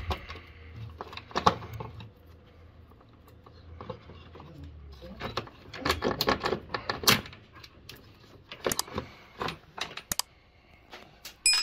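Scattered metallic clicks, clinks and knocks of hand tools and car parts being worked loose, with a quick run of them about six seconds in.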